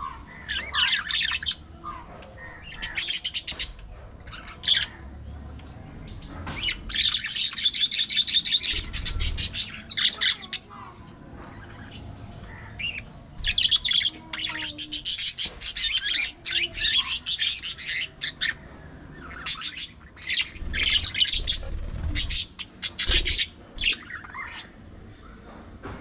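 Budgerigars chattering in repeated bouts of quick chirps and trills.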